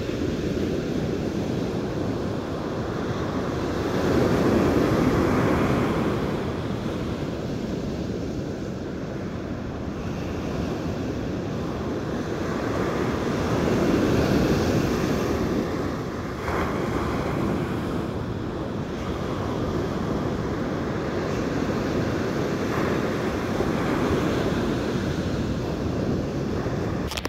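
Ocean surf breaking and washing up a sandy beach, the roar swelling and falling about every ten seconds, with wind buffeting the microphone.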